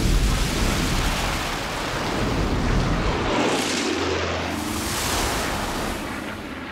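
Loud rushing roar of a fire mixed with the engines of propeller air tankers diving through the smoke, heavy with low rumble at first. About three to four seconds in, a sweeping whoosh as a plane passes.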